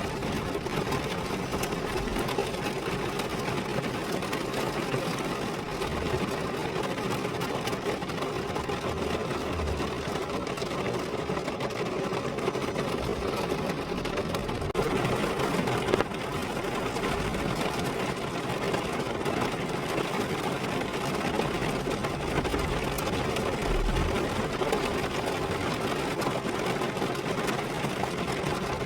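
Rain falling on a car, a dense, steady patter, with a few brief low thuds.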